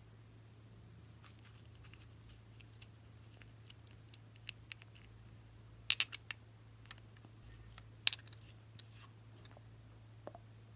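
Glossy slime being handled, giving scattered small sticky clicks and pops, the loudest a quick cluster about halfway through, over a steady low hum.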